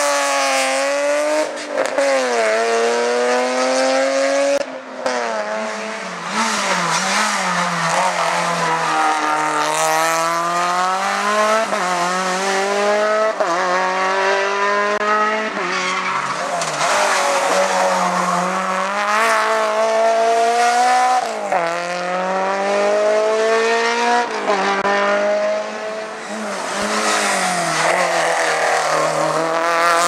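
Hillclimb race car engines revving hard up through the gears, the pitch climbing and dropping back at each shift, several runs one after another.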